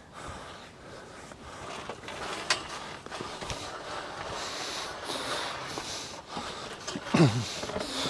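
Metal polytunnel hoop frame being dragged over the ground, with a steady scrape and scattered knocks, and a man breathing hard from the effort. A short sound falling in pitch, the loudest moment, comes about seven seconds in.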